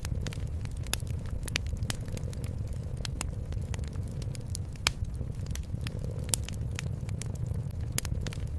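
Wood fire crackling in a fireplace, with sharp irregular pops several times a second, over a low steady rumble of a cat purring.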